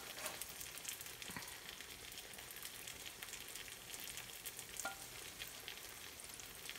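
Unniyappam fritters frying in hot coconut oil in a multi-cavity unniyappam pan: a faint, steady sizzle with fine crackling. Two light knocks, about one and a half and five seconds in, as fritters are lifted out of the oil.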